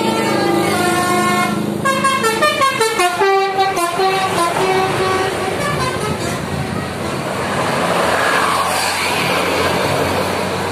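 Tour bus 'telolet' musical horn playing a tune of stepped notes, with a quick run of short pulsing notes about two seconds in. It stops after about six seconds, leaving the steady engine and road noise of passing traffic.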